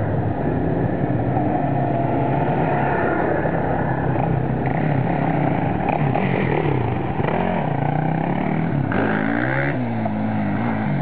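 Quad bike (ATV) engine running under changing throttle, its pitch rising and falling, with a sharper rev climbing and dropping about nine seconds in.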